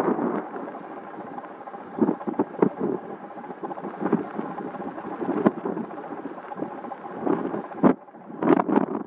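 Aircraft engine noise, a steady rumble with a faint even tone, with wind buffeting the microphone in irregular gusts.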